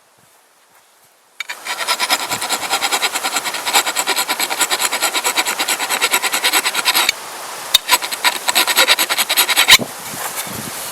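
A steel file rasping along an axe's cutting edge in quick, regular strokes, about four or five a second, with a ringing tone from the axe head; this is the filing that corrects the uneven bevel. The strokes start about a second and a half in, pause briefly past the middle, resume, then soften to lighter scraping near the end.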